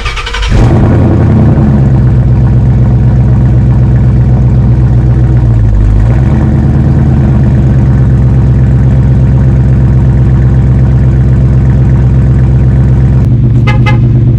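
2017 Mustang GT's 5.0-litre V8 cold-started through an exhaust with no mufflers, only resonators and axle-dump tips: a brief crank, then it catches and runs at a loud, steady cold idle. The idle sags briefly about six seconds in before steadying again.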